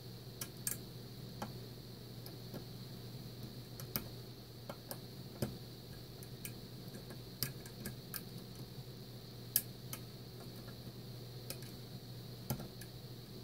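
A lock pick clicking against the serrated pins of a Mul-T-Lock Interactive cylinder. The small, sharp clicks come at an irregular pace over a faint steady hum.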